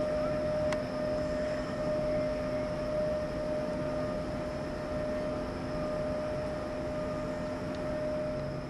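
A standing SŽ electric locomotive gives off a steady, even whine from its running equipment, which stops near the end. A single click comes early on.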